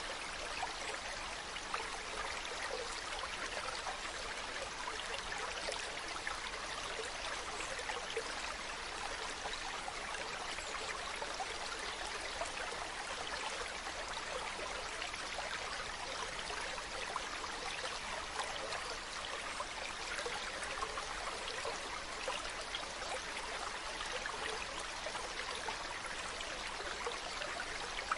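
Mountain stream running, a steady rush of water flecked with small splashes and trickles.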